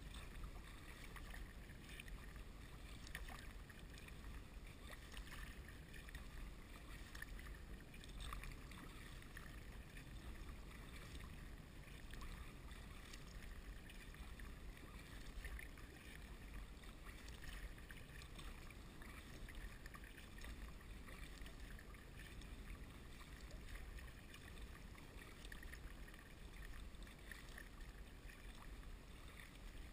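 Faint paddling of a sea kayak on calm water: the paddle blades dip and drip in small irregular splashes over a low steady hiss.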